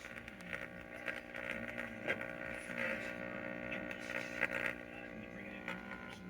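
Arvin 30R58 AM/FM tube radio sounding through its speaker: a steady hum with crackles and patches of static over it. The hum is the sign of failed filter capacitors in the multi-section can.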